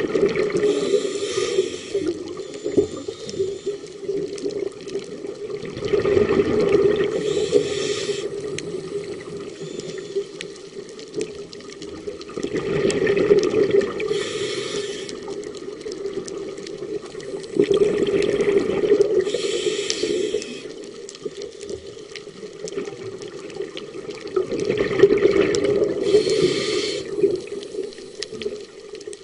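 A scuba diver breathing underwater through a regulator: five breaths, about one every six seconds, each with a rush of exhaled bubbles.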